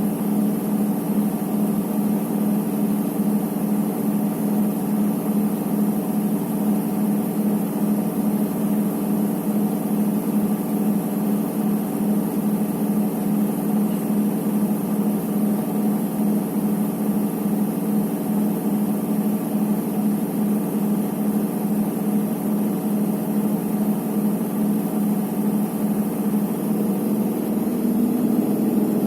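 Electrolux EWT 1377 VIW top-loading washing machine spinning, its motor giving a steady hum that rises slightly in pitch near the end. This is the machine that does not stop when its cycle should finish and goes on spinning.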